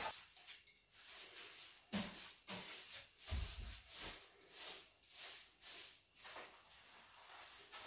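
Straw broom sweeping a tiled floor: soft brushing strokes, about two a second, with a couple of dull knocks in the middle. The strokes die away near the end.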